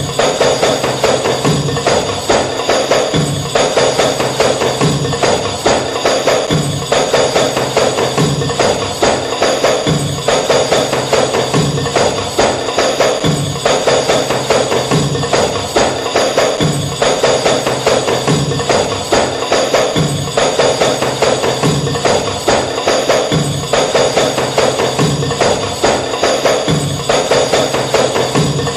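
Background music with a steady, busy percussive beat.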